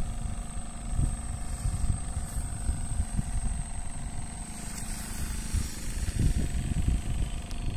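Wind buffeting the microphone: an uneven low rumble that rises and falls.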